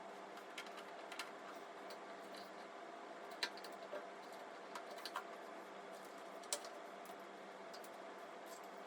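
A few scattered light clicks and taps, the loudest about three and a half and six and a half seconds in, over a faint steady hum.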